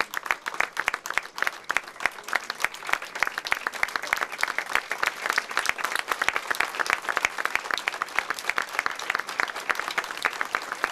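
A small group of people applauding, a steady run of separate claps that goes on without a break.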